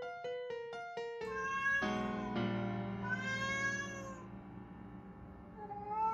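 Piano music with quick repeated notes, then a cat meowing in long, drawn-out meows from about a second in, the last one rising near the end.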